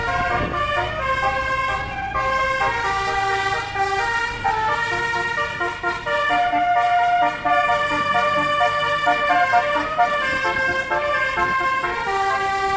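Bus telolet horn, a multi-trumpet musical air horn, playing a tune. Several horn notes sound together and change every fraction of a second, with one longer held note around the middle.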